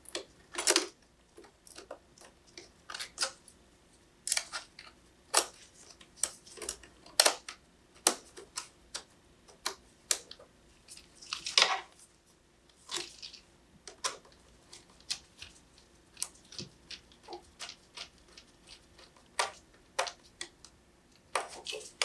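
Irregular small clicks and a few short scrapes of a Phillips screwdriver and the metal RAM access cover being fitted and screwed back onto the bottom edge of an aluminium iMac.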